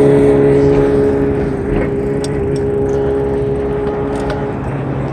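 A motor vehicle running by on the road: a steady engine and tyre hum that eases off slightly over a few seconds, with a few light clicks.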